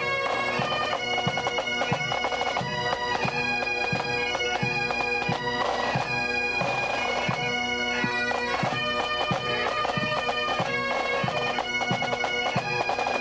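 Pipe band of Great Highland bagpipes playing a tune over their steady drones, with a regular low beat underneath.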